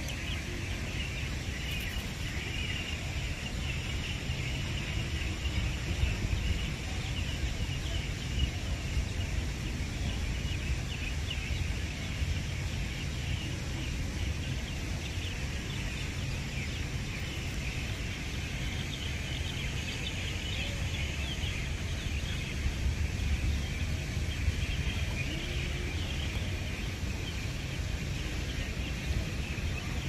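Steady outdoor ambience: a dense, continuous high chatter over a low rumble.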